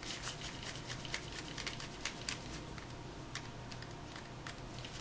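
Light, irregular clicking and ticking of a small screwdriver working tiny screws out of a compact digital camera's internal frame. The clicks come thick for the first couple of seconds, then thin out.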